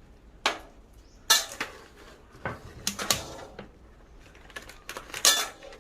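Kitchen utensils and dishes being handled: about eight separate, irregular clinks and knocks, the loudest about a second in and near the end.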